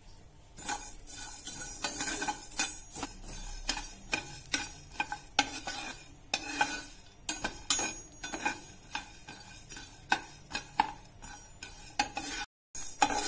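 Spatula stirring coriander seeds, cumin, fenugreek and garlic cloves as they dry-roast in a nonstick pan: repeated scraping strokes with the seeds rattling across the pan, a couple or so a second, breaking off for a moment near the end.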